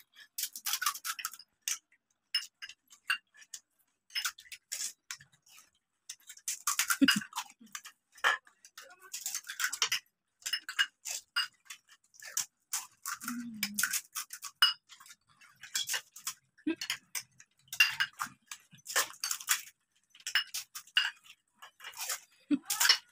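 Several people eating pani puri fast: crisp puri shells crackling as they are cracked open and crunched, with spoons clicking against steel plates and bowls, in quick irregular clicks and crackles.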